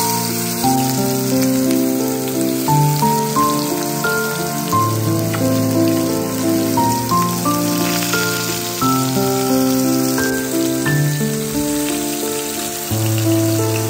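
Instrumental background music with a melody of held notes over a bass line, laid over the steady sizzle of whole pomfret frying in hot coconut oil in a pan.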